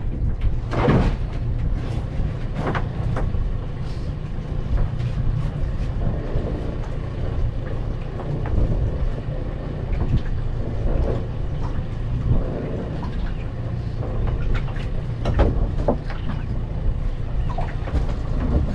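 Wind rumbling on the microphone aboard a small open boat, with scattered knocks from the crab-pot rope being hauled in by hand over the gunwale.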